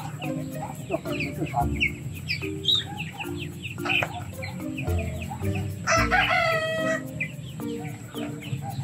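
Chickens clucking and chirping, with a rooster crowing once about six seconds in, over background music with short repeating notes.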